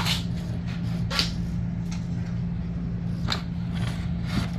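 A few light clicks and scrapes of slide-out cable hardware being handled as the cable's threaded end fitting is worked into place, over a steady low hum.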